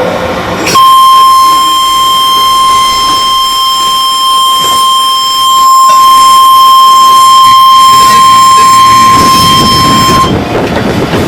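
Steady high-pitched warning tone aboard a JR 205-series electric commuter train, over the train's running noise. It starts about a second in, holds one unchanging pitch for about nine seconds, then cuts off suddenly.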